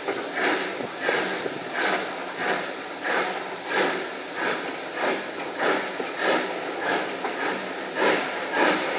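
Steam locomotive under way, its exhaust chuffing in an even rhythm of about three beats every two seconds, heard from an open carriage window behind the engine.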